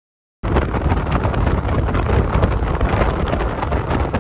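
Wind buffeting the microphone of a camera on a moving motorcycle, a loud rush with heavy low rumble and frequent short thumps, starting abruptly about half a second in.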